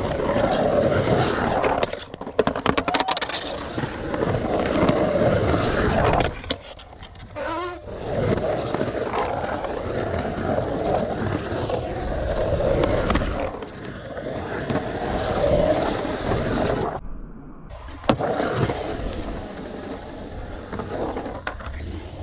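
Skateboard wheels rolling on a concrete bowl, with a few sharp clacks of the board.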